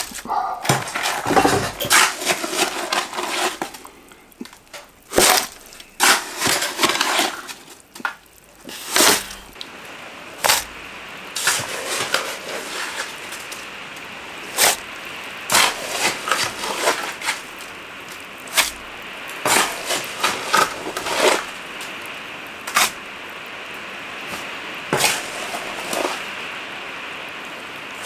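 Wet concrete being scooped and dropped into a wooden lintel formwork: irregular knocks, scrapes and wet slaps, about one every second, as the form is filled by hand.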